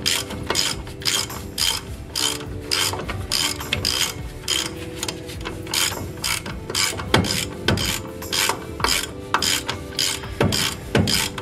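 Hand ratchet clicking in short, even swings, about two clicks a second, while tightening the caliper bracket bolts on a truck's steering knuckle. A few clicks near the middle and end are louder.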